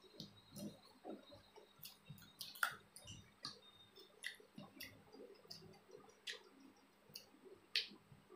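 Eating sounds: wet chewing and lip smacks with a scattering of short clicks, as two people eat rice and curry by hand.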